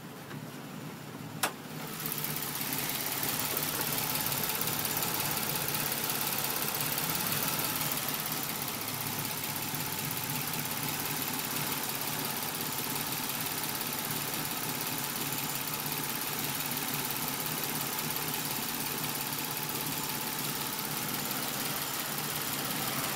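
Nissan Maxima V6 engine idling in park with a light tick and a slight periodic stumble in the idle. The car is showing a P0021 camshaft-timing code. There is a single click, and the engine becomes louder and steady about two seconds in.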